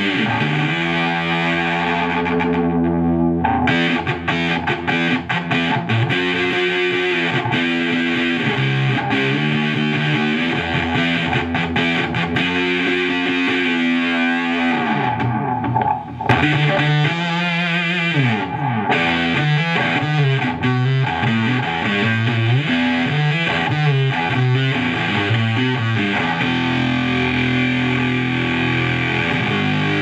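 Electric guitar played through a Gee Fuzz prototype pedal, a version of the Earth Sound Research Graphic Fuzz, giving thick, sustained fuzz-distorted chords and notes. There is a short break about 16 seconds in, followed by some bent notes.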